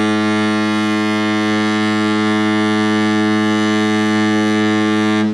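The Yuanwang-7 tracking ship's horn sounding one long, loud, steady blast on a deep tone, the departure signal as the ship casts off from its dock.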